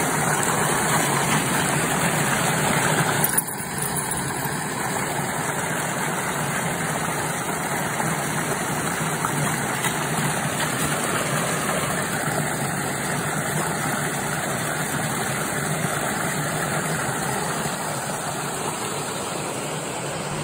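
Steady rush of water flowing along a narrow concrete irrigation channel, with a slight drop in level about three seconds in.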